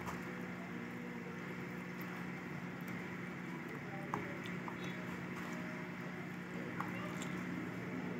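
A steady low hum with a few faint clicks and soft handling sounds as a cleaned squid is stuffed by hand with chopped tomato, onion and ginger.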